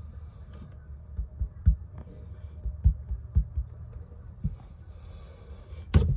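A rabbit's nose and face bumping and rubbing against a phone held right up to it, giving a string of irregular dull thumps. A louder knock and rustle comes near the end.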